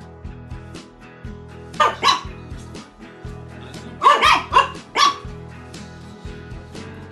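Toy poodle barking at the television: two sharp barks about two seconds in, then a quick flurry of three or four more around four to five seconds in, over background music.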